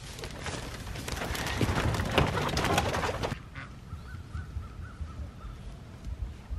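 Wheeled wooden chicken coop being hauled over wood chips and dry brush: a loud crackling, crunching rattle that cuts off about three seconds in. After it, a bird calls a quick series of short notes.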